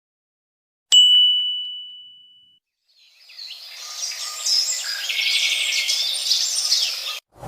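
A single bright ding about a second in, ringing out and fading over about a second and a half. Then a chorus of many birds chirping and twittering fades in and stops abruptly near the end.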